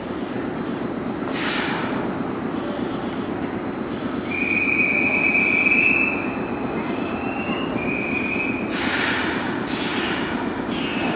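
Red Meitetsu commuter train standing at the platform with its doors open: a steady low hum from the train, with short hisses about a second and a half in and again near the end. A high, steady tone sounds for about two seconds in the middle, then briefly once more.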